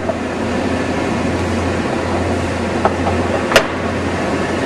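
Steady low hum and mechanical background noise around an automatic feed drill-drive-rivet machine while a wooden board is slid into its infeed, with one sharp click about three and a half seconds in and a fainter tick just before it.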